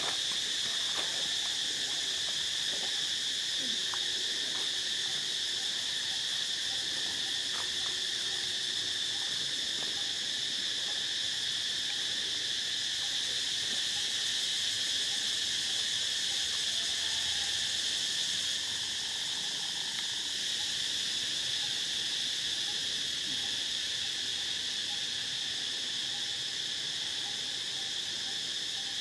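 Steady, high-pitched drone of a forest insect chorus, held on one pitch without a break.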